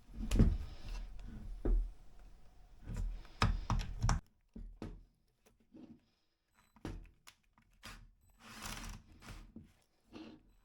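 Hard plastic and metal clacks and knocks of a router being handled and its parts moved, with a short rasping scrape near the end.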